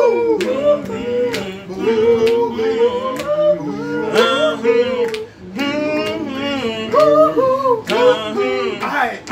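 A group of men singing together in harmony, drawing out long, wavering notes with few clear words, with a short break about five and a half seconds in. Sharp clicks keep the beat through the singing.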